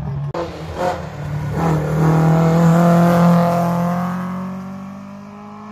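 Historic rally car accelerating up the stage toward and past, engine note rising, with two brief breaks in it during the first two seconds. It is loudest about three seconds in, then fades as the car pulls away.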